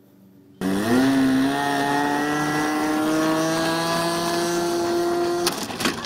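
Radio-controlled model airplane's engine running at a steady high pitch that creeps slowly upward. It stops abruptly near the end, followed by a few sharp knocks as the plane hits the ground.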